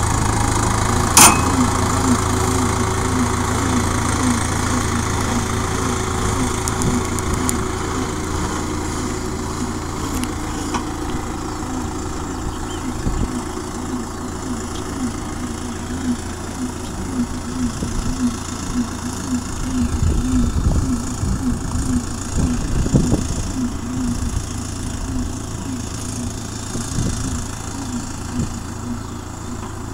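New Holland tractor's diesel engine running steadily while it drives a Metal Fach front-loading round-bale wrapper, with a sharp click about a second in.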